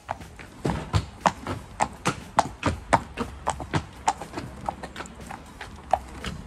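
A horse's hooves clip-clopping on a hard yard as it is led at a walk, about three strikes a second, lighter after about four seconds.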